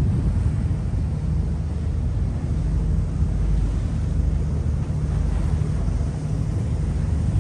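Harbour ferry under way: a steady low rumble from its engine, with wind buffeting the microphone on the open deck.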